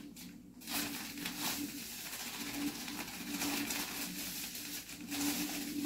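Sugar being poured from its packet into a bowl, the packet rustling, with a dove cooing repeatedly in the background.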